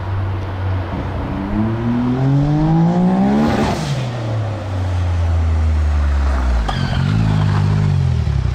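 Big-turbo Can-Am Maverick X3 three-cylinder engine running, revving up over a few seconds and falling back to a steady low idle, with a couple of short dips in the note near the end. It is breaking up with a burble, which the crew take for a classic ignition misfire, most likely from the spark plugs or their gap.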